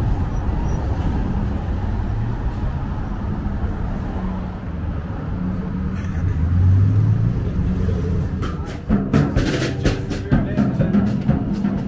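City street traffic, with vehicle engines running and passing and a heavier engine hum swelling about six seconds in. About nine seconds in, percussive music with drums and a knocking, wood-block-like beat starts up.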